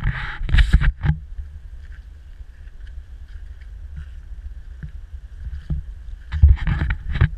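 Wind buffeting the microphone as a steady low rumble, with two louder bursts of noise, one in the first second and another near the end.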